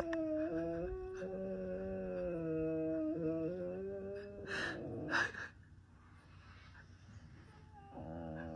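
A dog howling in long, held notes that waver slightly in pitch, then two short breathy huffs about five seconds in, and another quieter held note starting near the end.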